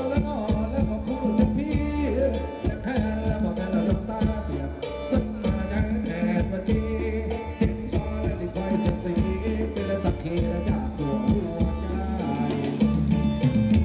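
Live band playing Thai ramwong dance music: a steady, fast beat of drums and percussion under pitched instruments and a strong bass line.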